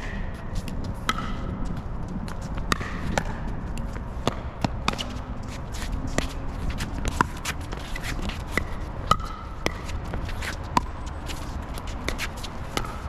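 Pickleball rally: sharp pops of paddles striking the plastic ball, with lighter taps and shoe scuffs in between, irregularly about once a second. A steady rumble of wind on the microphone runs underneath.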